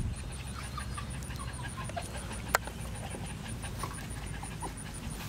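Faint short animal calls scattered through, over a low rumble of the camera being handled, with one sharp click about two and a half seconds in.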